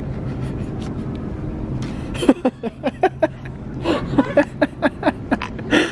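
Steady background hum of a large store, then from about two seconds in, a person laughing in many short, rapid bursts.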